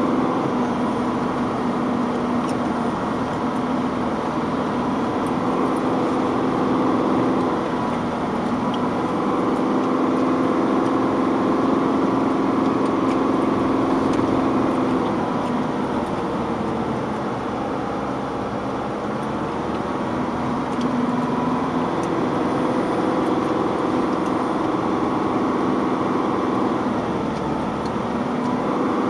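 Vehicle engine running while driving, heard from inside the cabin, with a steady drone whose pitch dips and picks up again three times.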